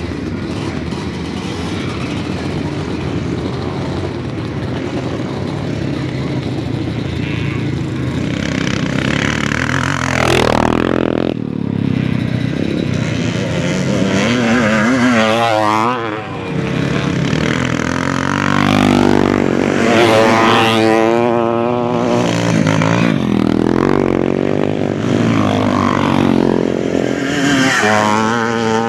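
Classic motocross bikes racing past one after another, engines revving and dropping in pitch as each goes by. A steady drone of engines for the first several seconds, then the first close pass about ten seconds in, followed by several more.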